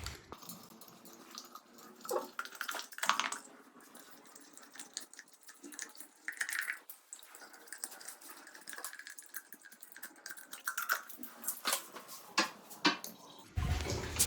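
Intermittent small plastic clicks, taps and scraping as threaded plastic caps are twisted by hand out of concealed body-shower jet boxes. The sounds come in short scattered bursts, with louder clusters near the start and toward the end.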